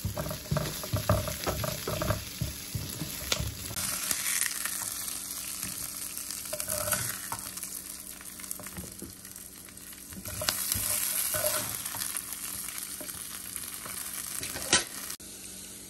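Chopped onions sizzling in hot oil in a stainless steel frying pan. For the first few seconds a plastic spatula scrapes and knocks against the pan as they are stirred. After that the sizzle runs on steadily with a few scrapes as the onions are lifted out, and there is one sharp knock near the end.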